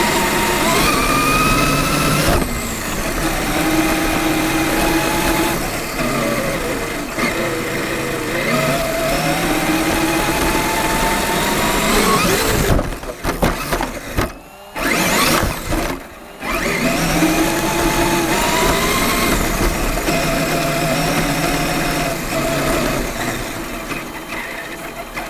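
Traxxas E-Maxx electric RC monster truck running across grass: its motor and gears whine, the pitch rising and falling with the throttle. About 13 to 16 seconds in, the sound breaks up into knocks and jolts as the truck tumbles over and lands back on its wheels. The whine dies down near the end as it slows.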